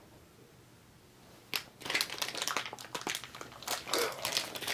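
Plastic packaging crinkling and rustling as it is handled and opened, in a run of irregular bursts starting about a second and a half in.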